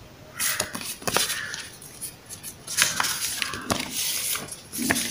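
Paper user-manual leaflets rustling and sliding against each other as they are handled, with scattered light clicks and taps.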